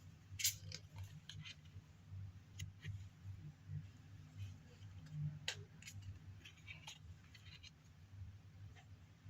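Matte oracle cards of medium-weight cardstock being handled and flipped: faint, irregular clicks and short papery slides as cards are moved and set down, the sharpest about half a second in. A steady low hum runs underneath.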